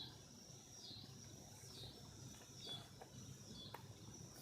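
Faint, high-pitched animal calls repeating about once a second against quiet outdoor background.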